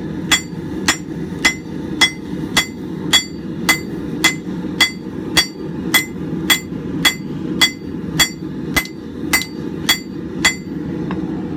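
Steady rhythm of hand-hammer blows on red-hot leaf-spring steel lying on an anvil, about two ringing strikes a second, as the bar is drawn out to thickness. A steady low rumble runs underneath, and the strikes stop near the end.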